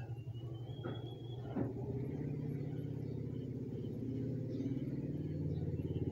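Steady low rumble of a running motor with a fast, even pulse, growing slightly louder toward the end.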